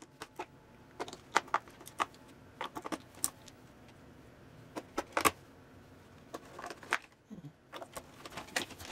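AA batteries being loaded into a plastic battery holder: irregular sharp clicks and clacks as the cells are pressed in against the metal spring contacts and the plastic case is handled.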